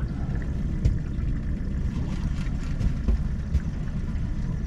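Small outboard motor on a fishing boat running at idle: a steady low rumble, with a few faint clicks.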